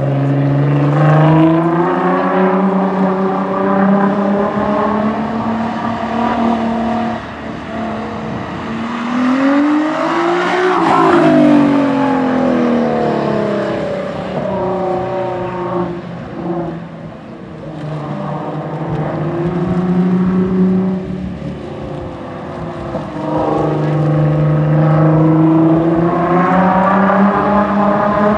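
Nissan GT-R's twin-turbo 3.8-litre V6 driven hard, its pitch climbing under acceleration and dropping off again several times as the car is pushed between cones and turns. About ten seconds in, the engine note sweeps sharply up and then back down, the loudest stretch.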